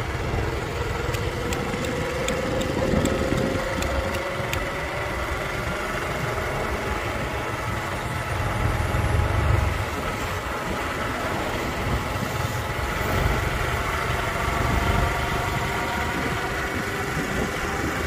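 Motorbike engine running while riding along, with a steady low rumble; its pitch rises gently over the first few seconds and again near the end as the bike picks up speed.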